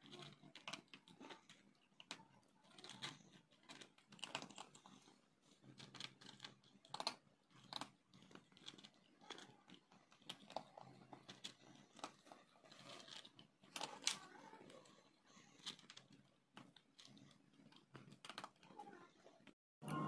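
Calico cat eating dry kibble from a plastic bowl: faint, irregular crunching and clicking as the pellets are chewed and knock against the bowl.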